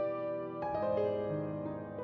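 Background piano music: soft, sustained chords, with a new chord struck about half a second in and left to ring out.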